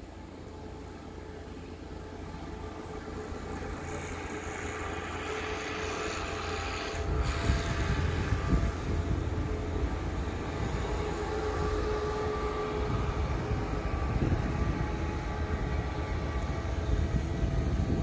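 Blizzard wind gusting and buffeting the microphone as a deep, uneven rumble. It builds over the first several seconds and is strongest and gustiest from about seven seconds in.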